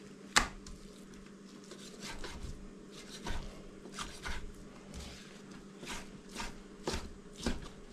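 Kitchen knife cutting raw chicken breast into small pieces, the blade knocking on the cutting board in short, irregular strokes, the sharpest about half a second in.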